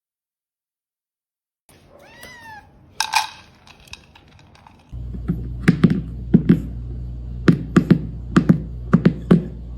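A hungry domestic cat meows once, a call that rises then falls, followed by a short, louder sound. From about five seconds in, background music with a steady beat takes over.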